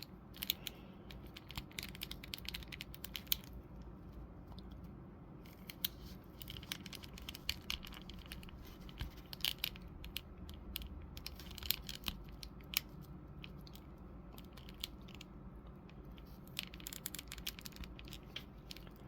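Plastic clicking and scraping as an action figure's head is forced onto a neck peg that is too tight: scattered sharp clicks over a low steady hum.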